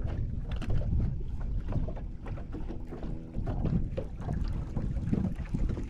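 Small waves lapping and slapping against a bass boat's hull, with wind buffeting the microphone as a low rumble.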